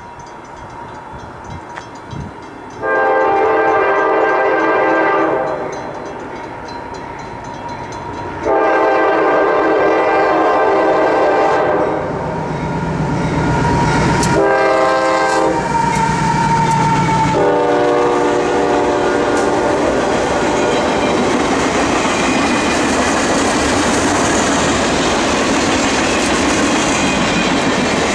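CSX GE AC6000CW diesel locomotive sounding its multi-chime horn in four blasts, long, long, short, long: the standard grade-crossing signal. Its engine rumbles in between as it comes up, and in the second half the intermodal container cars roll past with a steady rush and clatter of wheels on rail.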